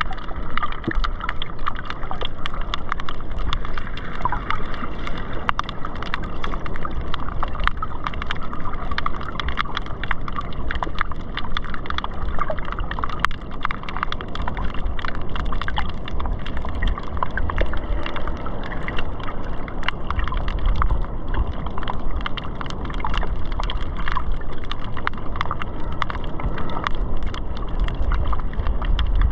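Shallow reef water heard from just under the surface: a steady low surge with constant fine crackling and clicking.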